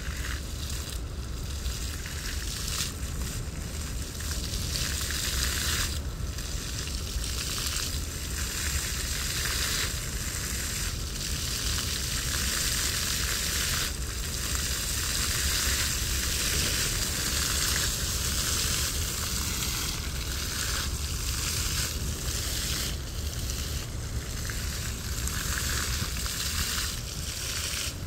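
Fountain jets spraying and water splashing down, a steady dense hiss that swells and dips every second or two as the jets change, over a low rumble.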